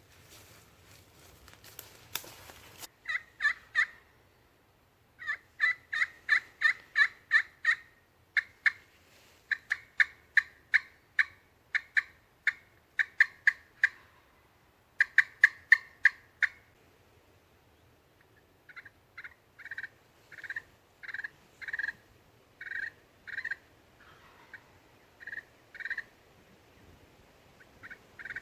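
A hunter's turkey call sounding runs of yelps: short, evenly spaced notes, about three to four a second, with pauses between runs, then slower, softer yelps in the last third. A brief rustle of handling noise opens it.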